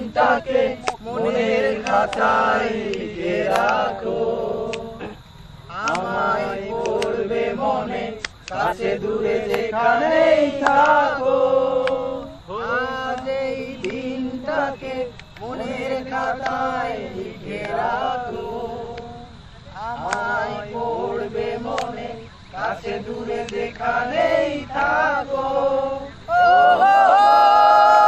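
A group of voices singing together in phrases of a couple of seconds with short breaks, turning into a louder, steady held passage near the end.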